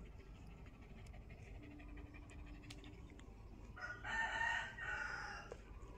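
A rooster crows once, a loud call in two parts lasting about two seconds, starting a little under four seconds in.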